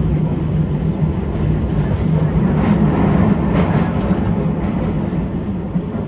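Electric commuter train running on rails, with a steady motor hum, rolling noise and a few faint clicks from the wheels. It eases off near the end as the train slows for its station stop.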